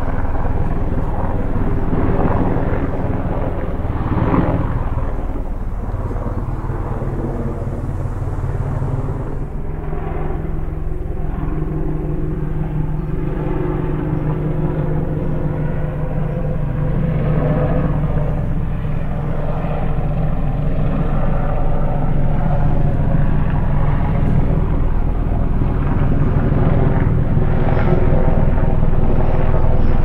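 Steady propeller hum of a small multirotor drone in flight. Its pitch shifts about nine seconds in as the motors change speed.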